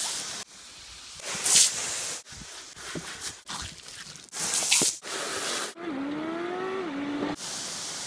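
Garden hose nozzle spraying water in a hissing jet, splashing over a black Labrador snapping at it, heard in short bursts that cut off abruptly. A wavering tone sounds for over a second near the end.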